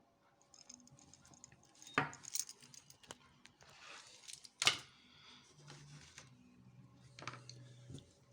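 Small metal lock parts of a gutted rim cylinder being handled: scattered light clicks and taps, with two sharper clacks about two seconds in and near the middle.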